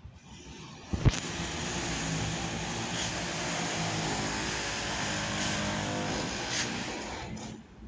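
A motor vehicle running for about six seconds, steady with a low pitched hum, then fading near the end. A sharp knock comes about a second in.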